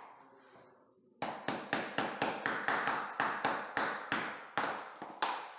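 Rubber mallet tapping along the edge of a luxury vinyl plank to seat its click-lock joint: a quick, even run of taps, about four a second, starting about a second in and stopping shortly before the end.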